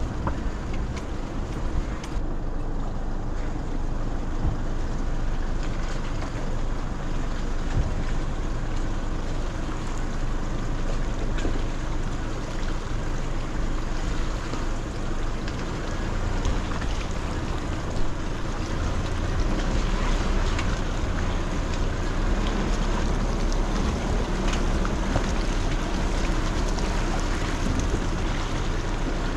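Mazda BT-50 4WD driving on corrugated gravel road: steady road and wind noise with frequent small knocks and rattles from the corrugations.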